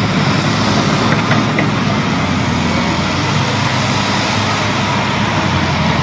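Diesel engine of a Liebherr A 904 wheeled excavator running steadily under load as it digs, a constant low drone.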